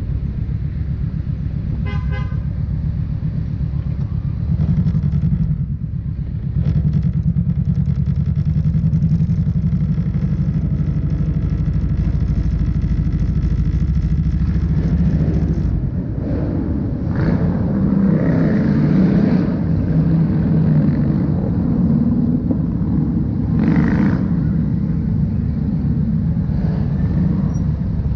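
Motorcycle engine running steadily at low parade speed, with a short horn toot about two seconds in. From about halfway on, other motorcycle engines close by make it louder and rougher, with a brief sharp burst of noise near the end.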